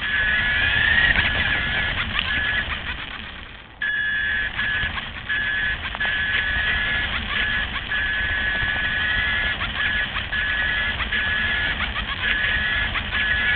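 LaTrax RC car's electric drive whining as it runs over rough tarmac: a steady high whine that breaks off briefly again and again, a few rising whines, and the rumble and ticking of the tyres on grit. The sound fades almost away a little before four seconds in, then comes back at once.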